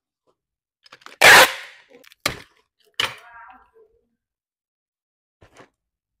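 Handling noises at a desk while packing small parts: a short loud rasp about a second in, then two sharp clacks under a second apart, the second with a brief rattle, and a faint tap near the end.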